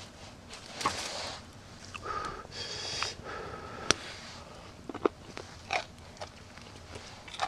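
Rustling and scraping from something handled close to the microphone, in a few short bursts, one with a brief squeak, broken by several sharp clicks.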